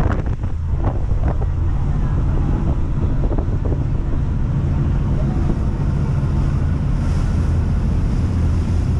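Wind buffeting the microphone in a steady low rumble over the drone of a ferry's engine, with a few faint knocks in the first second or so.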